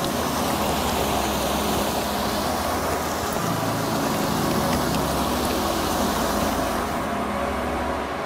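Steady rushing of a mountain creek over rocks, with a low steady hum underneath that shifts about halfway through.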